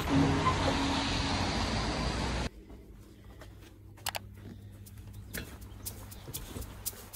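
A steady rushing noise with a little music faintly under it, cut off abruptly after about two and a half seconds. What follows is quiet room tone: a low steady hum with a few faint scattered clicks.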